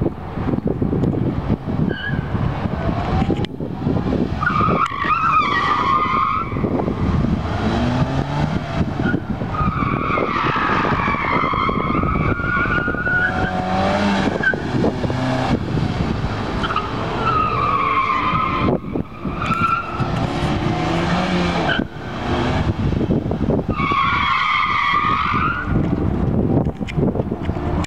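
Suzuki Swift Sport's tyres squealing in four long bursts as the car corners hard, over the steady running of its engine.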